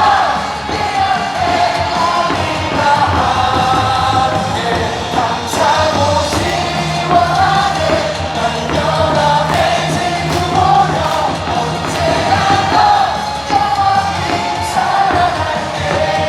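Large baseball-stadium crowd singing a cheer song in unison over amplified music.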